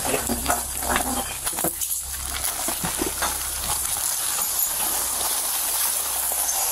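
Scuffling and clothing rubbing against a body-worn camera's microphone during a struggle: a steady hiss, with scattered knocks and scrapes in the first few seconds.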